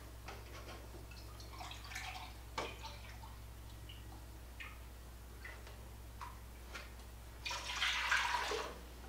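Milk poured from a plastic measuring cup into a large pot, a splashing pour of about a second near the end. Before it, light clicks and taps of the plastic cup and milk jug, and a quieter pour from the jug into the cup.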